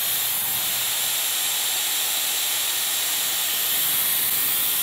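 Dyson Airwrap styler running, its curling barrel blowing air that draws a section of hair around it: a steady, loud rush of air with a faint high motor whine.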